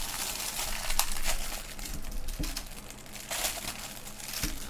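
Thin clear cellophane wrapper crinkling as it is handled and pulled open by hand, with a few louder crackles about a second in and again past three seconds.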